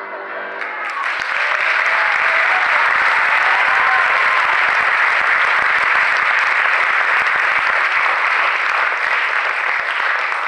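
Audience applauding, swelling over the first second into steady, loud clapping.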